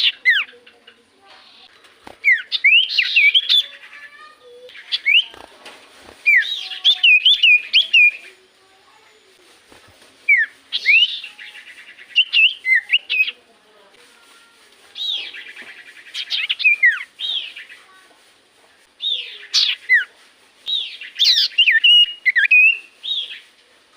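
Common iora (cipoh) singing: about five bursts of quick whistled notes that swoop up and down, separated by short pauses.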